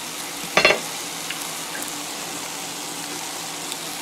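Potato chunks frying in vegetable oil in a pan: a steady sizzle, with one short louder sound about half a second in.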